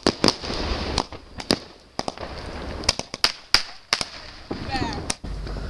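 Fireworks going off: sharp bangs at irregular intervals, about a dozen, with crackling between them. Near the end the bangs give way to a steadier low rumble.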